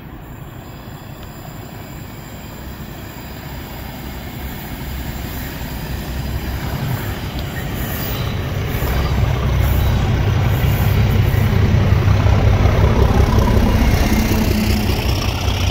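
Diesel locomotive hauling a train of coaches approaching along the line. Its engine and the rolling stock grow steadily louder, and the train passes close by near the end.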